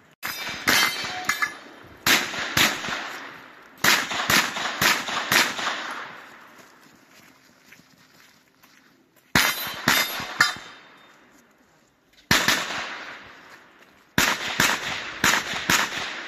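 Rapid strings of gunshots from competition shooting, each shot with a long echo off the range: six strings of several quick shots separated by pauses, the last one near the end fired from a pistol-calibre carbine.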